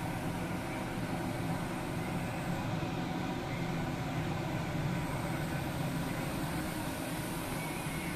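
Steady low drone of an anchor handling tug supply vessel's running machinery, heard inside the ship's bridge.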